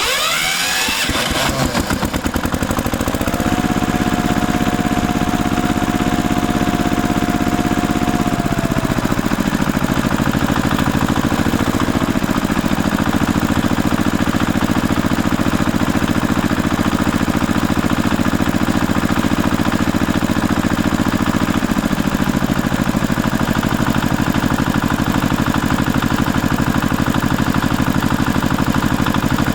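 Diesel tractor engine starting up within the first two seconds, then running steadily. A high whine over the engine drops away about eight seconds in, and the engine note settles lower a few times after that.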